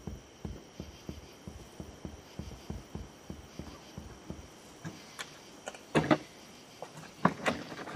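Soft footsteps of several people walking, then a few sharp knocks and rattles in the second half as a locked door is tried. A faint steady high hum runs underneath.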